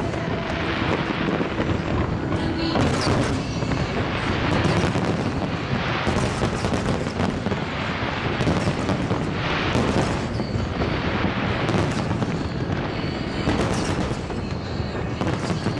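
A fireworks display in full barrage: aerial shells bursting one after another in dense, overlapping bangs and crackle, with no break.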